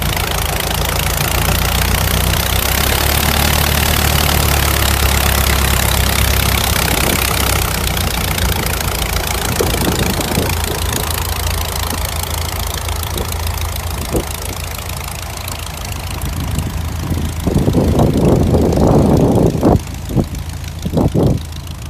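Fairchild 22 vintage monoplane's piston engine running on the ground, its steady drone slowly fading as the plane taxis away. From about seventeen seconds in, irregular loud gusts of wind buffet the microphone.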